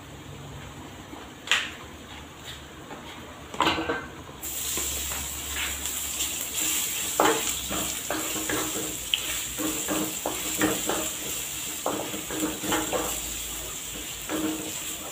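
Chopped garlic sautéing in hot oil in a nonstick wok: a steady sizzle starts suddenly about four seconds in, after a couple of sharp knocks, and keeps going. A wooden spatula stirs the garlic, with frequent knocks and scrapes against the pan.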